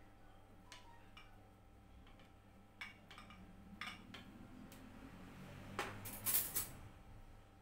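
Light clicks and scrapes of a kitchen knife against a small ceramic plate while a boiled potato is peeled by hand, then a louder clatter of cutlery and crockery about six seconds in as the knife is put down.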